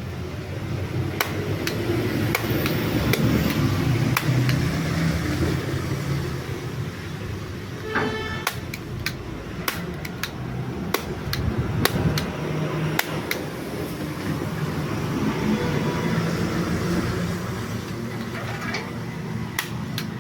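A steady low mechanical hum, louder for a few seconds near the start, with a scatter of sharp metallic clicks and taps from tools at work on a motorcycle.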